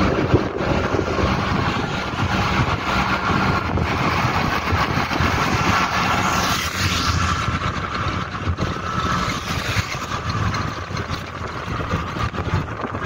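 Auto-rickshaw on the move: its small engine running steadily under a constant rush of road and wind noise.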